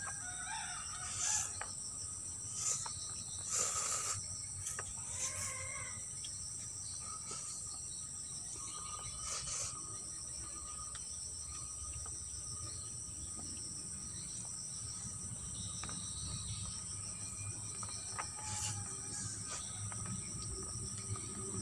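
Steady high-pitched drone of insects, with a rooster crowing a few seconds in.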